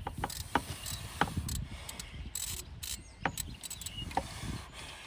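Hand socket wrench ratcheting a 10 mm bolt on a truck engine: irregular clicks of the ratchet as the bolt is worked.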